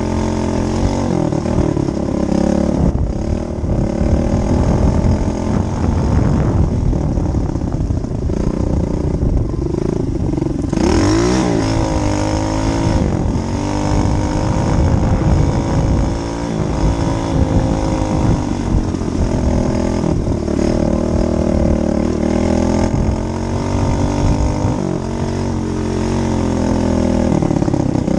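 Dirt bike engine running, its pitch rising and falling as it is revved.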